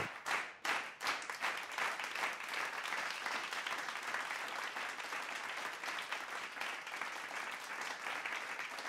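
Audience applauding: dense, steady clapping that starts as the speech stops and slowly fades.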